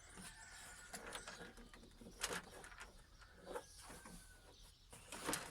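Faint, scattered clicks and snaps of a TV's plastic back casing being pulled loose from its clips; it still holds where a screw is left in.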